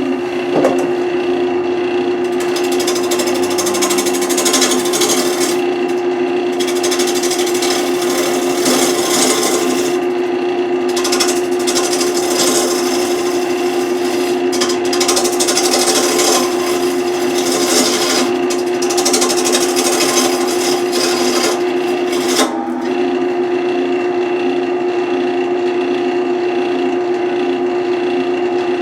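Wood lathe running with a steady motor hum while a turning tool cuts the spinning wood, the scraping cutting noise coming and going in stretches.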